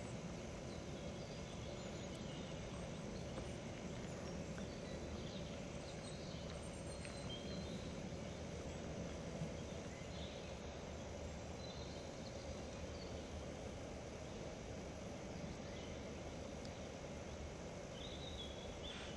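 Woodland ambience: a steady low hiss with faint, short high chirps scattered throughout.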